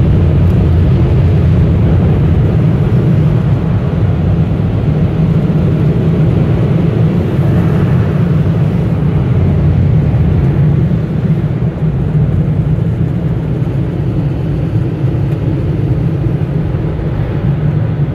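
Car wash dryer blowers running with a loud, steady rumble, heard from inside the car; it eases off somewhat after about eleven seconds.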